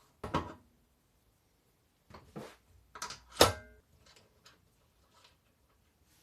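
A series of knocks and clunks from objects being handled: one just after the start, a cluster around two seconds in, and the loudest about three and a half seconds in, which leaves a brief ringing tone.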